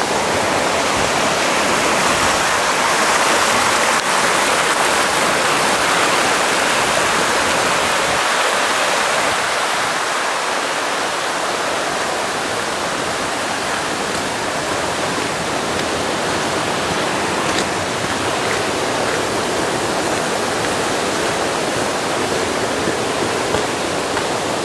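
Rushing stream of running water, a steady even rush that is a little louder in the first several seconds and eases slightly after.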